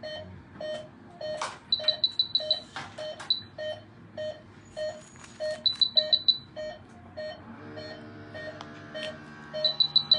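Veterinary anaesthesia monitor beeping with each heartbeat of a sedated wolf, a steady pulse of a little under two beeps a second that signals a stable heart rhythm. Short runs of quicker, higher-pitched beeps cut in three times.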